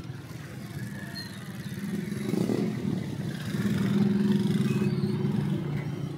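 Small motorcycle engine running through traffic, its note swelling twice as the throttle opens.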